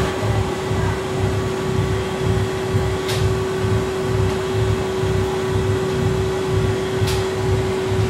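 Steady machinery hum with one constant tone over a low throb that pulses about twice a second, and two light clicks.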